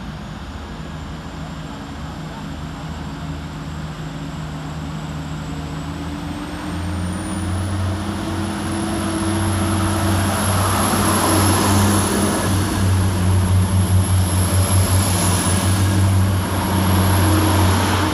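Class 175 diesel multiple unit's diesel engines running and growing louder, with a deep engine note that strengthens about seven seconds in and a thin high whine that rises and then holds steady.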